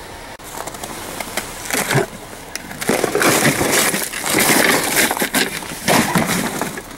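An office chair being handled and pulled about in snow: irregular rustling, scraping and knocks of its plastic and metal parts, in bursts about two seconds in, from three to five seconds, and again around six seconds.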